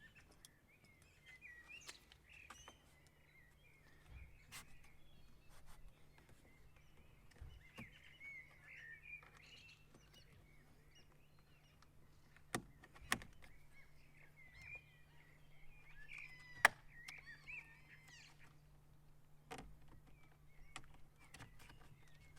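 Quiet handling sounds of plastic trim clips and a plastic pry tool being worked into a car's rear door trim: scattered light clicks and taps, with a few sharper clicks about midway through, over a faint steady hum.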